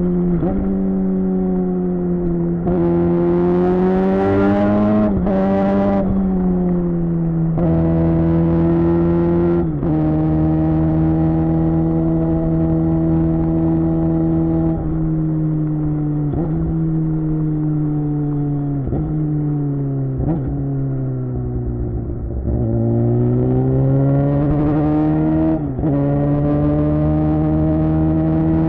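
Suzuki GSX-R600 K7's inline-four through a Yoshimura R11 exhaust while riding. The engine pitch rises and drops several times through gear changes, holds steady while cruising, and then falls with a few short blips. It climbs again in a pull away about three quarters through.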